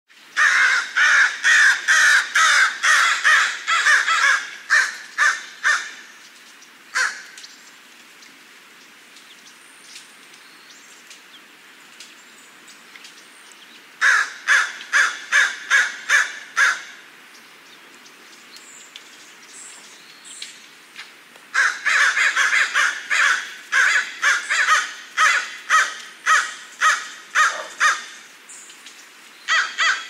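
A single crow cawing in quick runs of short caws, about three a second, with pauses of several seconds between the runs.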